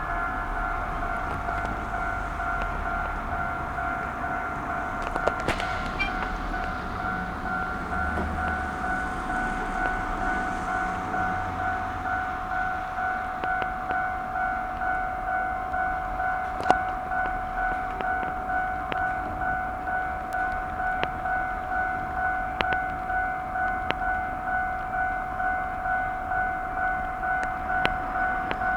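Japanese level-crossing warning alarm ringing steadily in a regular beat, two pitches together, signalling that a train is approaching. There are a few sharp clicks along the way.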